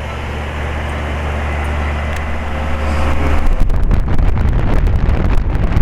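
A 1995 Lennox three-ton central air-conditioner condensing unit just switched on, with a steady low hum. About three and a half seconds in it grows louder into a rough, gusty rushing of air.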